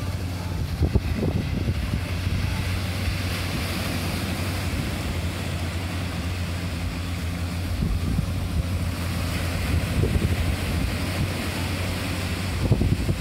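Wind rumbling on the microphone over the steady wash of surf on a sandy beach, with a few stronger gusts.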